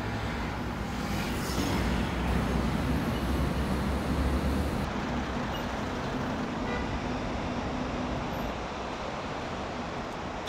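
Road traffic passing under an elevated road: a steady rumble of cars and trucks that is loudest about two to five seconds in.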